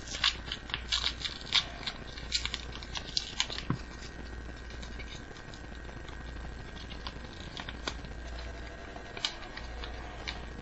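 Pokémon trading cards and a homemade paper booster pack being handled by hand: a run of light clicks, taps and rustles, busiest in the first four seconds, then only the odd tick.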